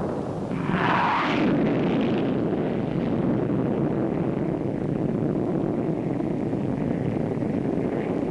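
Jet fighter roar, the Hawker Hunter in a high-speed pass: a steady rushing roar that swells sharply about a second in and holds.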